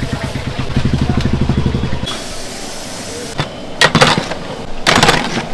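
Cooking at a large aluminium pot of steaming rice: a low, evenly pulsing throb for about the first two seconds, then two loud, harsh scraping bursts near the end from the metal ladle against the pot.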